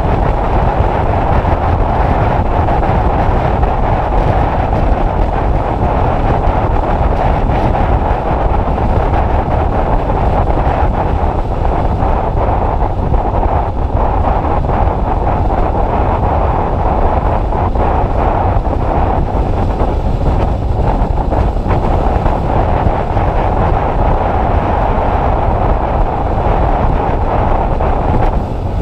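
Steady, loud wind rush buffeting the microphone of a Honda CBF600 motorcycle on the move, drowning out most other sound.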